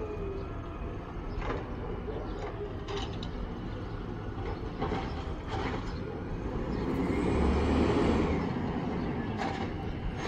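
CNG-fuelled Dadee Scorpion automated side-loader garbage truck running at a distance, with several sharp knocks and clanks. About two-thirds of the way in it swells louder for a second or two.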